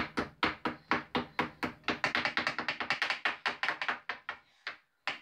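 Rapid tapping of a small hammer and chisel on a plaster fossil-dig block, about five or six sharp strikes a second, thinning out and stopping near the end.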